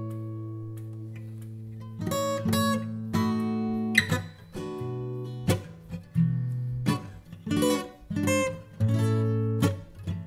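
Background music on acoustic guitar: a held chord fades for about two seconds, then a run of strummed chords, each ringing out briefly.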